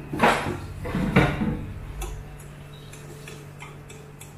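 A metal spatula scraping and tapping against a stainless steel frying pan while stirring chopped onions: two louder scrapes in the first second and a half, then a run of light ticks.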